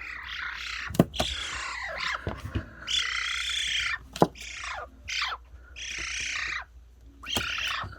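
Pet magpie making a string of harsh, rasping calls, several in a row, some sliding down in pitch, with a few sharp clicks in between.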